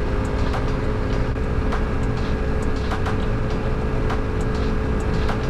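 Honda CRF300 Rally's single-cylinder engine running steadily as the motorcycle cruises on a gravel road at about 90 km/h, with a constant low rumble and scattered sharp ticks.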